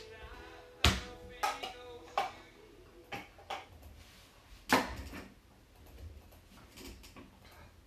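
A series of sharp knocks and clatters of hard objects, about six in the first five seconds and fainter ones after, with a held musical tone dying away in the first few seconds.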